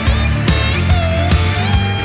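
Background rock music with a steady drum beat and a sustained lead line that bends in pitch.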